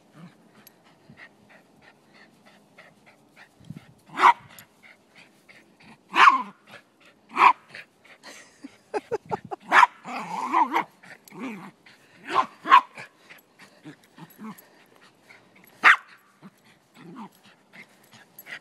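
Silky Terrier barking: short, sharp barks every few seconds, with several close together in the middle, and fainter taps in between.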